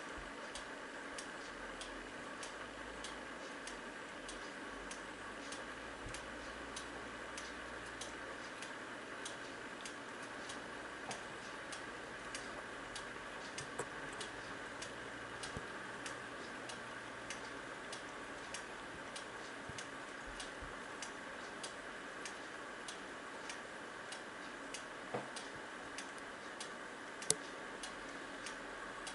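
Large weight-driven pendulum wall clock with an exposed gear train (Jarosław Kukowski's "Zegar XXVII"), its escapement ticking steadily in an even tick-tock. One louder click comes near the end.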